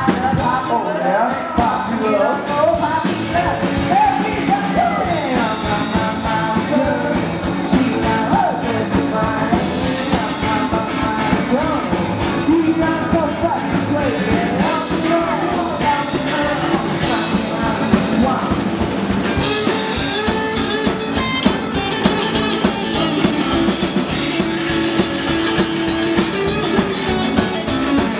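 Live band playing a song: a male voice singing over strummed acoustic guitars, electric guitar and a drum kit. About two-thirds of the way through, the texture gets busier and the electric guitar comes forward.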